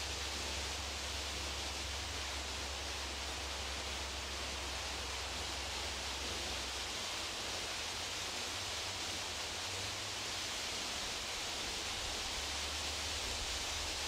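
Steady, even hiss of outdoor background noise, with a low rumble that fades out about halfway through.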